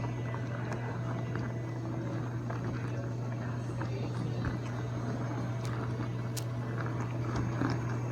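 Whirlpool WDT720PADM0 top-control dishwasher running: a steady low motor hum with faint scattered ticks.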